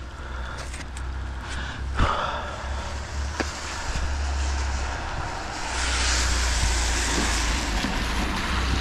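Wind buffeting the microphone in a low rumble, with a sharp metal knock about two seconds in and a lighter one a second later as a rusty iron platter is pried off a neodymium fishing magnet. Over the last few seconds a broad hiss of wind grows louder.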